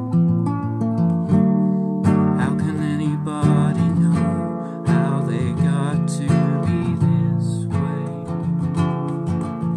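Acoustic guitar played in standard tuning with a capo at the third fret, picked chords in a steady rhythm. A man's voice sings over it from about two seconds in until shortly before the end.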